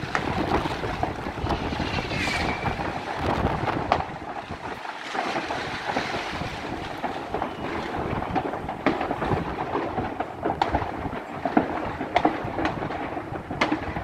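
New Year's fireworks going off all around: a continuous din of overlapping distant bangs and crackles, with sharper single pops standing out and a short whistle about two seconds in.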